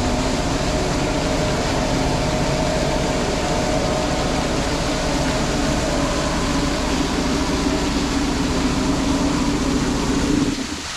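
Jet ski engine running steadily under way, a constant drone over a wash of water and wind noise. The sound drops off sharply near the end.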